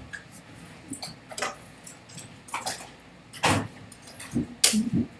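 Hand sounds from a person signing: a handful of short, sharp slaps, taps and brushes of hands against each other and the body, the loudest about four and a half seconds in.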